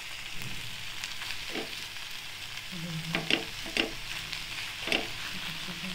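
Steel spoon stirring and scraping cooked eggplant sabzi in a metal pan, with a few sharp clinks of the spoon against the pan, over a steady low sizzle of the dish still on the heat.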